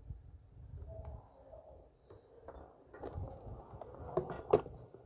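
Light handling noises of small objects: soft clicks and knocks over a low rumble, with one sharper click about four and a half seconds in.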